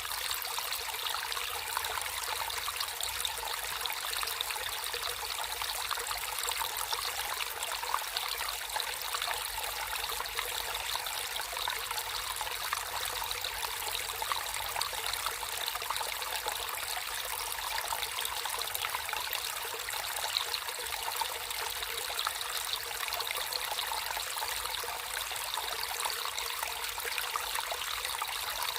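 Water flowing and trickling steadily over stones, an even splashing babble with no change.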